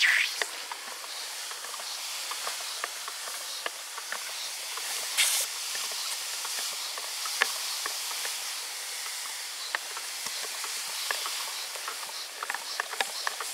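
Soapy froth on a grey mineral slurry in a plastic bucket fizzing and crackling as its bubbles pop, while a brush stirs it. There are many small ticks throughout and a short sharp hiss about five seconds in.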